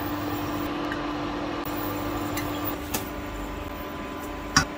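A small motor or fan-driven appliance running with a steady hum, with a light click about three seconds in and a sharper click near the end.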